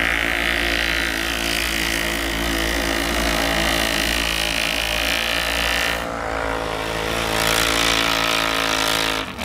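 Engines of a side-by-side UTV and a quad ATV running hard at high revs at a steady pitch as they climb through deep snow.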